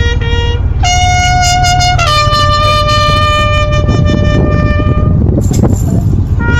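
A horn-like wind instrument holding long notes: a short one, a higher one of about a second, then a lower one held about three seconds before stopping. A heavy steady low rumble of wind on the microphone runs underneath.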